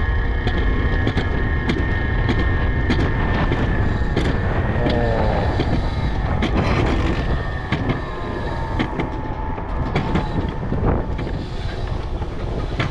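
Mountain coaster sled running along its steel rail: a steady rumble of the wheels on the track with a constant high whine and irregular clicks. Brief squealing glides about five seconds in and again later, and the sound eases a little in the last few seconds.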